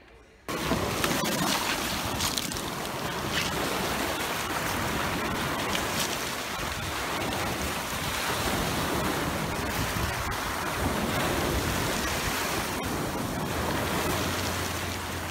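Waves breaking and washing up a pebble shore, a steady loud rush of surf that starts abruptly about half a second in.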